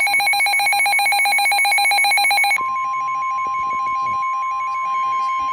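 Emergency Alert System warning tones: a fast-pulsing electronic warble for about two and a half seconds, then a steady single-pitched attention tone with a fainter beeping under it.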